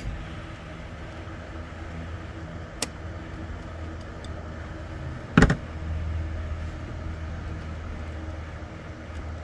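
Ford Escape engine idling steadily in the engine bay, with a small click about three seconds in and a sharp plastic snap or knock about halfway through as a coil connector clip is worked by hand.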